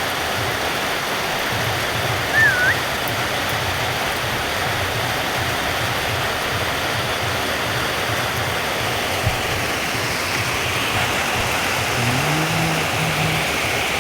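Steady hiss of heavy rain, with a single short whistled chirp from a parrot about two and a half seconds in and a brief low sound near the end.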